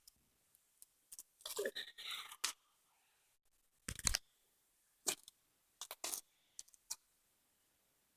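Slime being handled and squished: an irregular run of sticky clicks and short crackling squelches, the longest about two seconds in and again about four seconds in.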